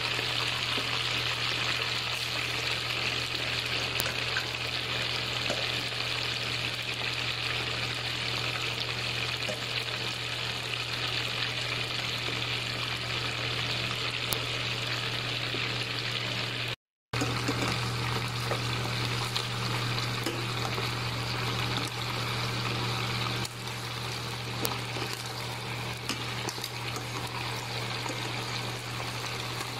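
Chicken pieces deep-frying in hot oil: a steady bubbling sizzle over a steady low hum. The sound cuts out for a moment a little past halfway, and the sizzle is slightly quieter in the last few seconds.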